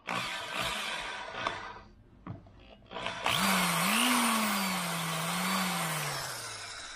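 Bosch GSB 13 RE impact drill boring holes into a wall: a short burst of drilling, a brief lull, then a longer run about three seconds in, its motor pitch rising and then slowly sinking as it winds down near the end.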